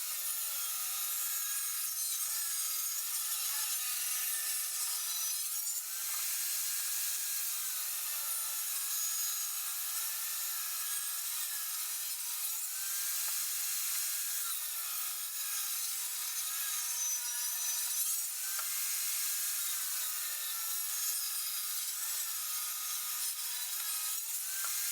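Table saw cutting a 3/4-inch-wide, 1.5-inch-deep groove along cedar 2x4s fed through on end. The saw runs steadily and its pitch sags and recovers several times as each board is pushed through the blade.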